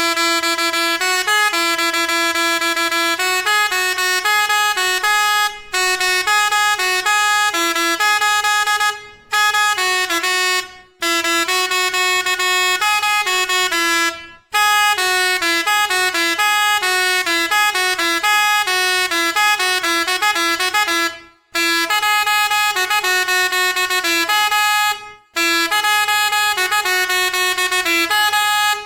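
Seger musical truck air horn playing a string of short melodies, loud pitched horn notes stepping up and down one after another, with brief breaks between tunes as it moves through its melody selection.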